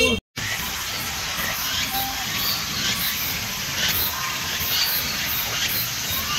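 Steady outdoor background hiss with faint, scattered bird chirps, after a brief dropout to silence near the start.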